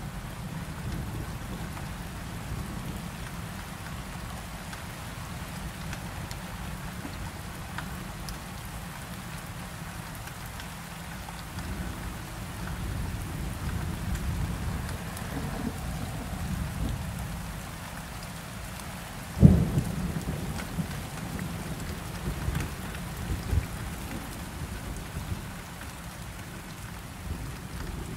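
Steady low rumbling noise, with one sharp thump about two-thirds of the way through and a few smaller knocks after it.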